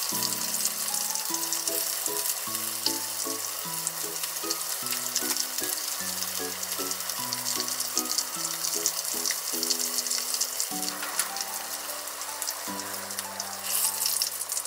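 Chicken karaage frying in shallow oil in a pan: a steady crackling sizzle, flaring louder briefly near the end. A light background music melody plays under it.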